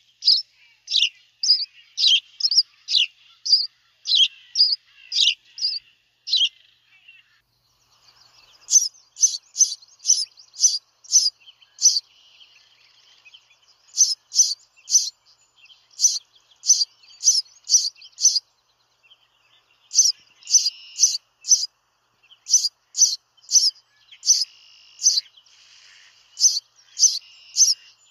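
House sparrows chirping: a long series of short, sharp cheeps, about two a second, coming in runs of several notes with short breaks between them.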